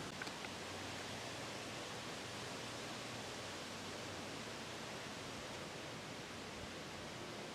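Steady hiss of background noise, with a couple of faint clicks just after the start.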